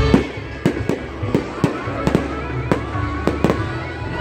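Fireworks going off: a quick, irregular string of sharp bangs and pops, about a dozen in four seconds.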